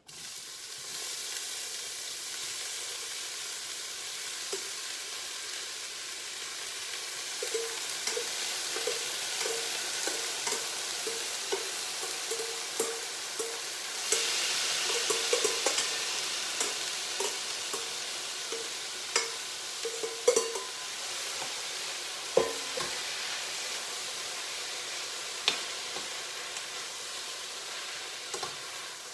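Chopped vegetables sizzling in hot coconut oil in a stainless-steel pan, with a utensil stirring and tapping against the pan at a steady pace. The sizzle swells about halfway through as more vegetables go in, and a few sharper knocks come later.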